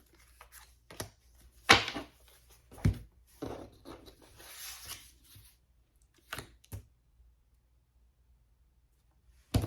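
A deck of tarot cards being shuffled and handled: several sharp card snaps and taps, the loudest about two seconds in, and a rustling shuffle in the middle. It goes quiet for a couple of seconds near the end before one more snap.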